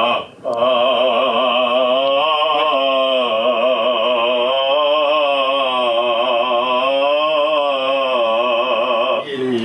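A man's trained singing voice holding one long note with vibrato for about eight seconds, starting about half a second in and stopping just before the end.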